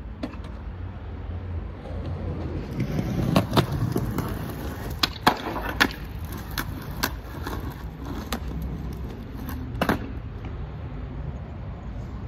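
Skateboard rolling on a concrete sidewalk, the wheels rumbling and clacking over the slab joints, with a string of sharp board clacks, the loudest about five seconds in and another near ten seconds.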